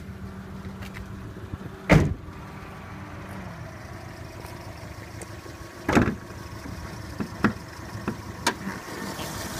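Car body clunks: a loud thump about two seconds in as the driver's door is shut, and another about six seconds in at the hood as its latch is released and it is lifted, followed by a few lighter clicks. A low steady hum of the idling engine runs underneath.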